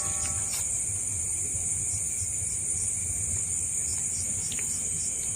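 A chorus of night insects keeping up a steady, high-pitched shrill drone, with a fainter, lower steady trill under it.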